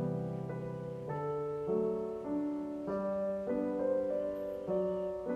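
Background piano or keyboard music, a new chord struck about every half second in an even, steady pulse.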